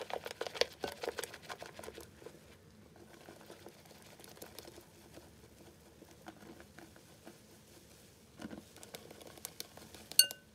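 Wire whisk stirring flour into pancake batter in a bowl: a dense run of soft clicks and taps for the first couple of seconds, then fainter steady ticking, a knock about eight and a half seconds in, and a few ringing metal clinks near the end.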